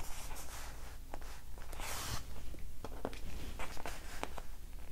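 Paper rustling and light clicks from hands handling a disc-bound planner's pages, with a brief rustle about two seconds in, over a faint low hum.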